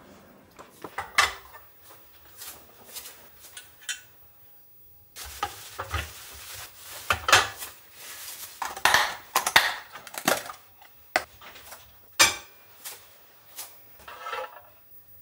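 Kitchenware being handled on a counter: scattered clinks and knocks as a madeleine pan and utensils are moved and set down. From about five seconds in there is a few seconds of rustling as a paper towel is rubbed over the madeleine pan.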